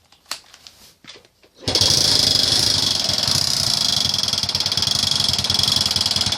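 Delta/Alpha moped's four-stroke single-cylinder engine starting under two seconds in and running with a fast, steady knocking clatter. The knock comes from the generator cover, dented inward by stone strikes, touching the part that leads to the Hall sensor, and sounds like a broken cam chain tensioner.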